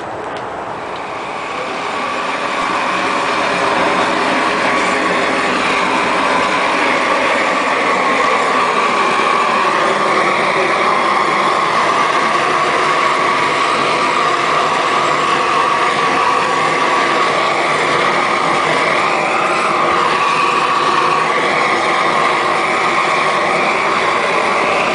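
Propane roofing torch burning steadily as it heats a roll of bitumen torch-down membrane being unrolled. It grows louder over the first few seconds, then holds steady.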